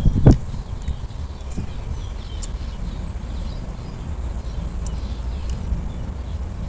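Outdoor ambience: a steady low rumble with a few faint bird chirps, and one sharp thump just after the start.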